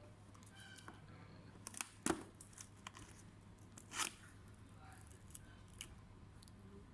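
Scattered sharp clicks and taps of hands and tools working on a laptop's plastic case, the two loudest about two and four seconds in, over a steady low electrical hum.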